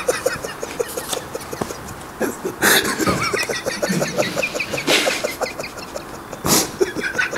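A man laughing hard in a long fit of short repeated pulses, broken by three loud sharp bursts of laughter.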